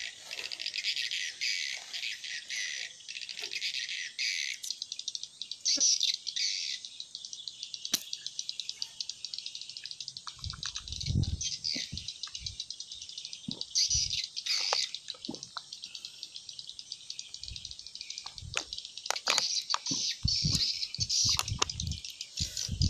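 Birds chirping over a steady, high-pitched buzz of outdoor wildlife. A few dull low thumps come about halfway through and again near the end.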